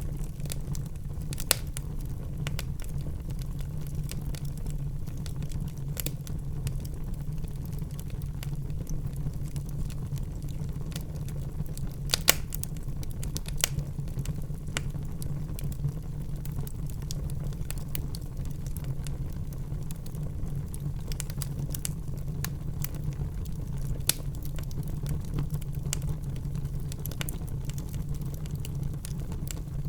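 Wood fire burning in a fireplace: a steady low rumble with scattered crackles and sharp pops, the loudest pop about twelve seconds in.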